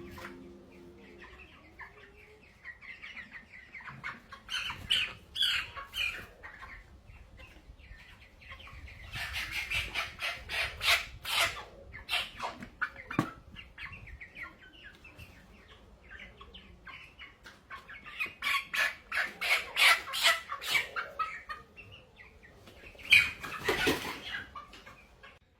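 Broiler chickens clucking and squawking with flurries of wing flapping, in four separate bursts with quieter stretches between.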